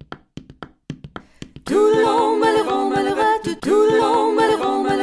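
Theme music: a few short, sharp notes, then from about a second and a half in a group of voices singing loudly in harmony, a cappella style.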